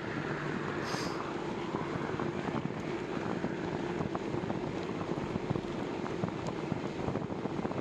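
Steady rolling noise of a bicycle on pavement: a constant tyre hum with many small rattling ticks.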